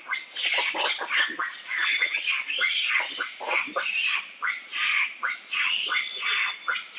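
A troop of macaques screaming and shrieking in harsh, overlapping alarm calls, several a second without a break, as they mob a boa constrictor.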